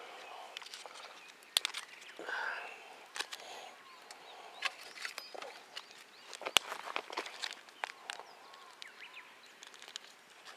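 Irregular rustling with scattered sharp clicks and snaps, the two sharpest about one and a half and six and a half seconds in.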